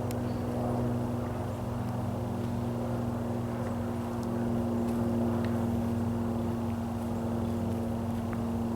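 An engine running steadily at constant speed, a low even hum that does not change pitch.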